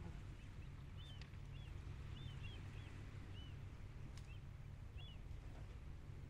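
Small birds giving short, high, arched chirps scattered through, over a faint steady low rumble.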